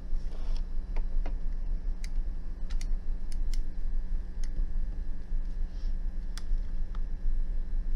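Scattered light clicks and taps as the Hikari HK915 desoldering gun is handled and its parts are fitted and unfastened, about eight sharp clicks spread over the few seconds. A steady low hum runs underneath.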